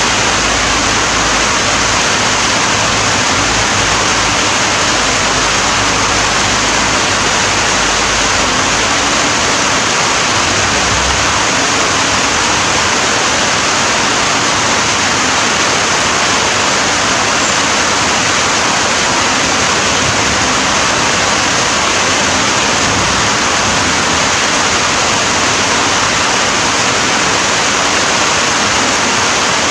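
Steady, heavy rain falling in an even hiss, with no breaks or separate drops standing out.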